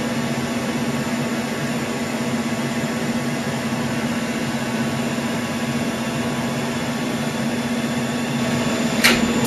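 1988 Mori Seiki MH50 horizontal machining centre running with its head feeding slowly along the Y axis: a steady mechanical hum with a constant low tone. About nine seconds in, a loud hiss starts suddenly.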